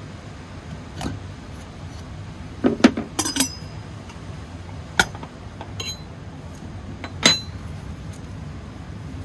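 Metal stovetop percolator being taken apart, its lid, stem and basket clinking as they are lifted out and set down: a quick run of clinks about three seconds in, then single clinks around five and seven seconds.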